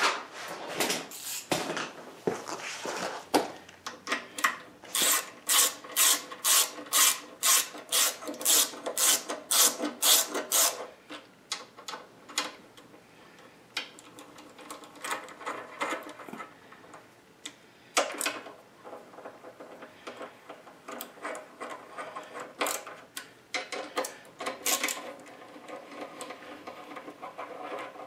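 Socket ratchet wrench driving bolts into a housing flange on a lathe's cast-iron base, its pawl clicking on each back stroke. The clicking runs at about two strokes a second for several seconds in the middle, with slower, scattered clicks and rubbing before and after.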